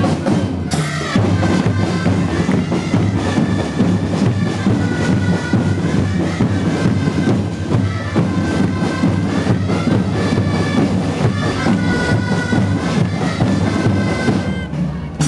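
Band music with a steady drum beat and a repeating melody line, played for a dance.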